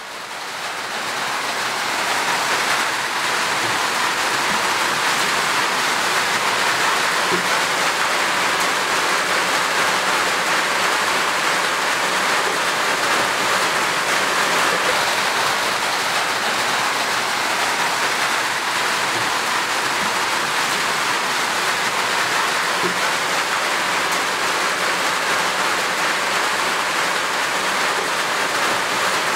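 Steady rushing water sound, like heavy rain, fading in over the first couple of seconds and then holding even.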